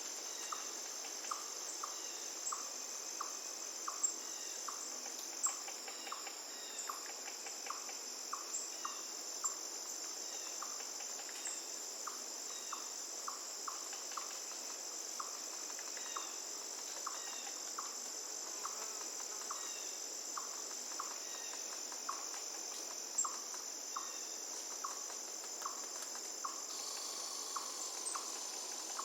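A steady, high-pitched insect chorus, with a short chirp repeating about twice a second, over the soft hiss of running river water.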